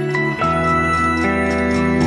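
Background music: sustained keyboard chords, with a chord change about half a second in.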